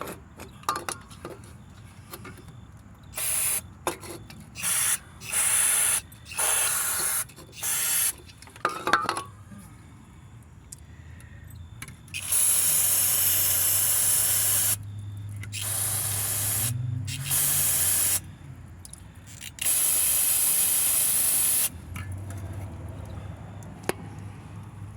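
Aerosol cleaner hissing in about six short squirts, then four longer blasts of one to two seconds each, sprayed onto a wheel hub's ABS tone ring to wash dirt off it.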